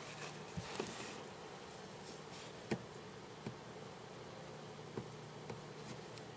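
A steady low hum over faint hiss, with several faint clicks scattered through; the sharpest click comes a little under three seconds in.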